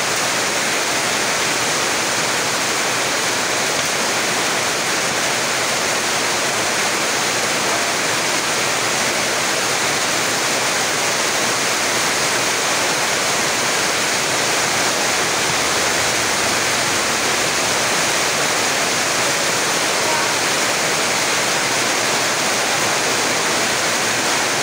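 Rain falling steadily and heavily, a constant even hiss.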